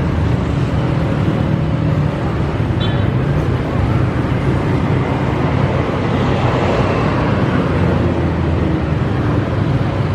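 Diesel-electric locomotive of the KAI CC 206 class running with a steady low rumble as it moves slowly forward during shunting.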